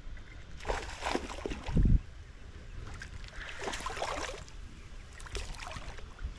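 Water splashing and sloshing in irregular bursts as a small hooked Mayan cichlid is fought and reeled in, with one heavy knock about two seconds in.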